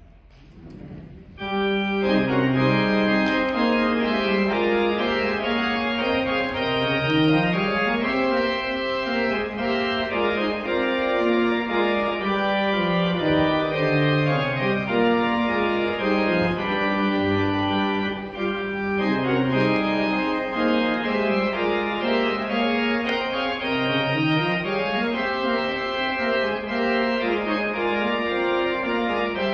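Organ postlude starting about a second and a half in: sustained chords over a bass line that twice walks up and back down.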